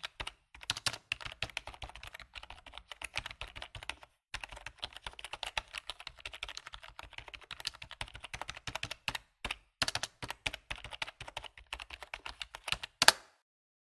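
Typing on a computer keyboard: a fast, uneven run of keystroke clicks with two short breaks, about four and nine seconds in, and a louder final keystroke near the end.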